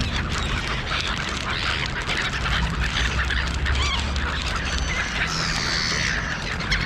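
Gulls calling over a flock feeding on the ground, with sharper calls about five seconds in and a steady low rumble underneath.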